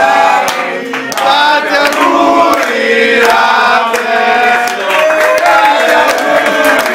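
A group of teenagers singing together in chorus, with hand clapping, around a lit birthday cake.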